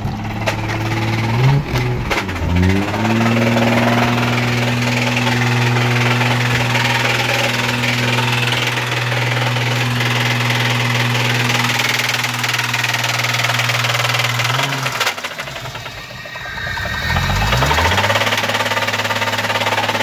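Toyota 1JZ inline-six engine running with a knock, which the owner takes for a serious rod knock. Its pitch shifts briefly a couple of seconds in and again near the end, with a short dip in level about three-quarters through.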